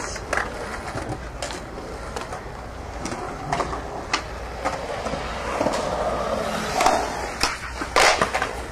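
Skateboard rolling around a concrete bowl, a steady wheel rumble broken by sharp clacks of the board every second or so, the loudest bang near the end.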